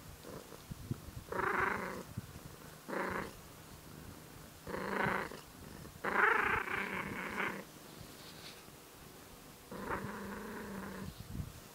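Tortoiseshell cat purring steadily while growling at the same time, in five short bursts. The longest burst comes about six seconds in.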